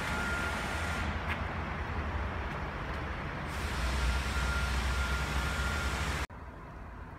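Steady low rumble with a hiss and a faint high whine coming and going, which drops abruptly to a much quieter hiss about six seconds in.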